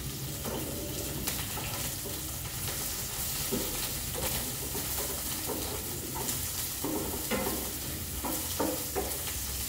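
Chopped peppers and tomatoes for menemen sizzling in oil in a pan, stirred with a plastic spoon in irregular scraping strokes.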